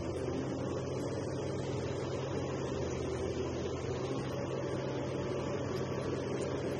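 Liebherr R 984C crawler excavator's diesel engine running steadily under load while its bucket digs into the soil; an even, unchanging drone.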